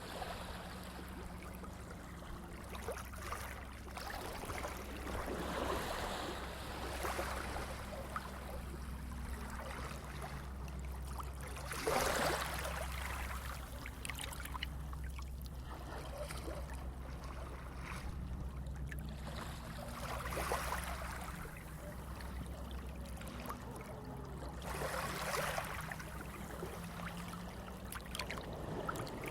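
Sea waves washing in and draining away in irregular surges a few seconds apart, the biggest about twelve seconds in, over a steady low hum.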